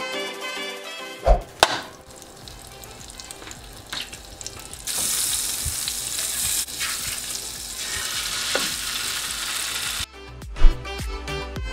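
Butter melting and sizzling in a hot frying pan, the sizzle growing much louder about five seconds in and holding steady. A couple of sharp knocks come just before the sizzle rises, and background music plays at the very start and returns near the end.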